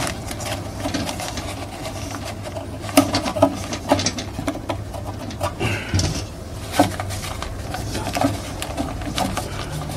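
Paper dust bag being flattened and pushed by hand into a steel dust-collector drum: scattered rustles and taps, with a few sharper knocks against the metal, over a steady low hum.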